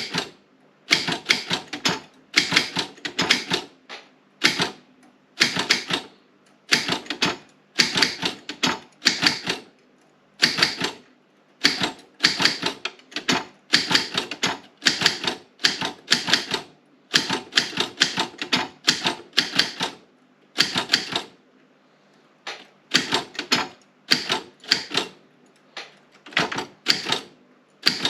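Optima M16 typewriter being typed on: quick runs of key strikes in uneven bursts with short pauses between them, and a longer pause about three quarters of the way through.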